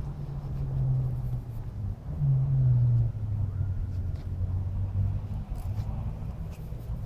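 An engine running with a low, steady hum that steps down in pitch about two seconds in.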